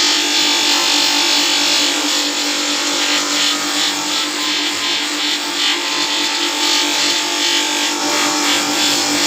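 Machine tool running, with a steady hum and a loud hiss over it that pulses a couple of times a second through the middle, typical of metal being cut or polished on a lathe.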